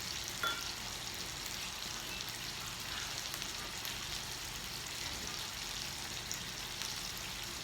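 Food frying in oil in a pan: a steady sizzling hiss with small scattered pops.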